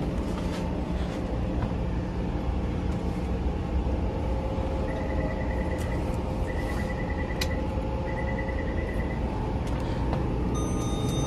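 Steady low rumble and hum of a Taipei Metro C341 train interior. In the middle come three short runs of rapid high-pitched beeping, and near the end a high electronic chime tone starts.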